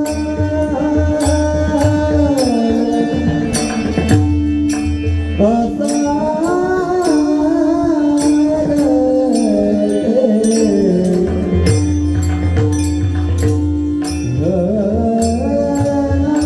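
A male voice singing a long, high, ornamented melody of a Marathi devotional song over a held drone, with drum strokes and repeated percussion strikes; the drum drops out for a few seconds in the middle and comes back.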